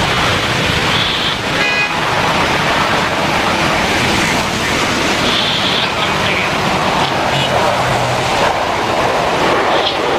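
Boeing 737-800 jet airliner landing in heavy rain: a loud, steady rush of jet engine noise mixed with the hiss of rain. A short pitched tone cuts through it about a second and a half in.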